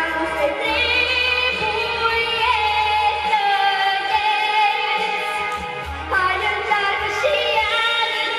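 A young girl singing solo into a microphone over a recorded backing track with a steady bass, holding long notes with vibrato.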